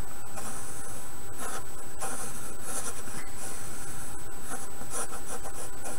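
Pencil lead scratching across paper in a few drawn strokes, over a steady background hiss.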